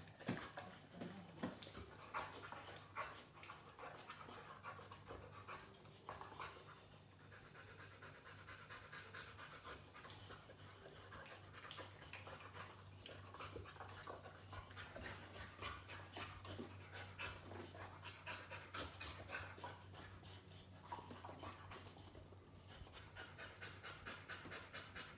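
A boxer dog panting, faint, quick, rhythmic breaths.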